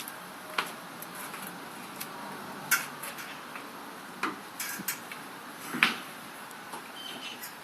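A handful of sharp clicks and knocks, about five scattered over several seconds, over a steady hiss. No engine is running.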